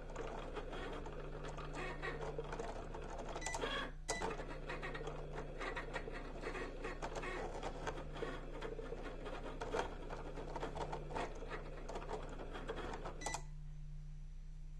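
Cricut cutting machine at work cutting printed sticker labels: its motors whir as the carriage and mat move, under a dense run of small clicks and a steady low hum. The clicking and whirring stop for about the last second and a half, leaving only the hum.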